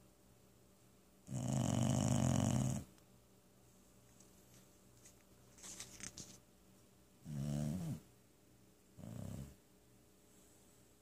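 A sleeping dog snoring: one long loud snore, a faint crackly snuffle, then two shorter snores, the last one quieter.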